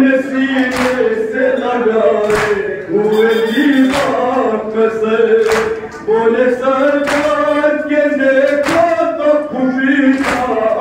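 Men's group singing a noha, an Urdu lament, in chorus with long held notes. A sharp slap comes about every second and a half, keeping time: rhythmic chest-beating (matam).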